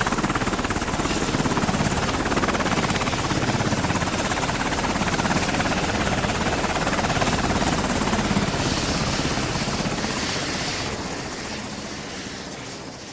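Helicopter flying, its rotor blades beating rapidly and evenly; from about eight seconds in it fades steadily away.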